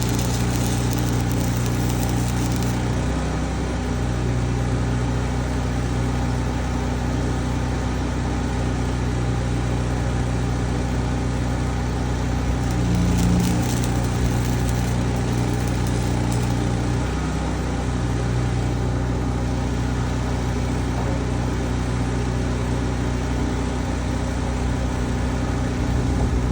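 An engine running steadily under the hiss and crackle of a stick welder laying a bead with a welding rod.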